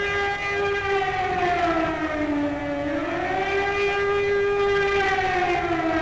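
Civil defense siren wailing, its pitch sliding slowly down, back up about three seconds in, and down again near the end.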